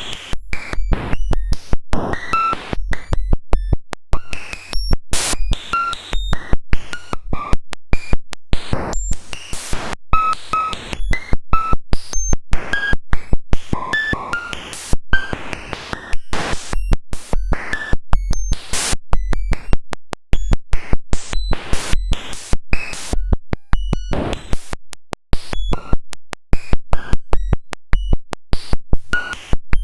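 Harsh, glitchy electronic sound made by writing a Generations cellular automaton's normalized population ratio directly into the audio samples: a rapid stream of clicks with brief high blips and noisy stretches, the loudness jumping up and down as the population count changes from generation to generation.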